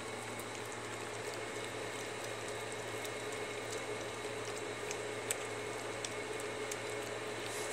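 Terrier puppies lapping and smacking at soft, wet puppy mush in a steel bowl: a steady run of small wet clicks and slurps over a low background hum.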